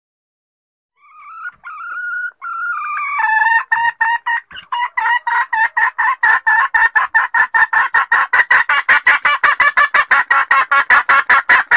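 Junglefowl hen calls used as a lure call: a few drawn-out notes, then a fast, even run of clucks, about five a second, that keeps going.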